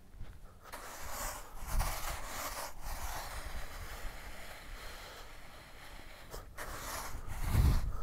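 A bunker rake dragged through sand, a scraping rustle that breaks off briefly twice.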